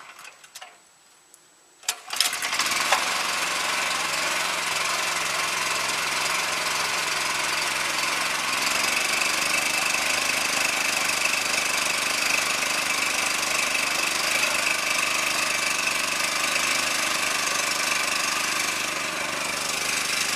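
A few light knocks, then about 2 s in the old C.H. Wood Company resaw bandsaw, driven by an 11-horsepower motor, starts abruptly and runs steadily at speed with no wood in the cut, a steady high whine riding over the machine noise.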